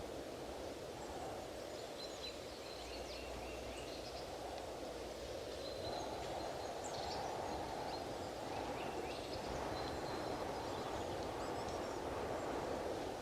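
Strong wind blowing in steady gusts, swelling and easing, with birds chirping briefly several times over it.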